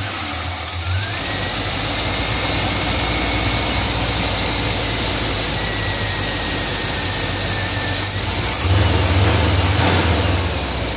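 Chevrolet 305 small-block V8 with a Quadrajet four-barrel carburetor idling steadily, just started on a freshly fitted fuel filter. It runs a little louder for about a second and a half near the end.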